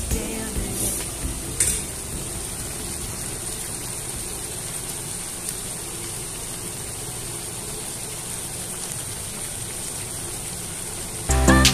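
Chicken curry simmering in a pan on the stove: a steady hiss of the bubbling sauce. A couple of spatula strokes against the pan come in the first two seconds.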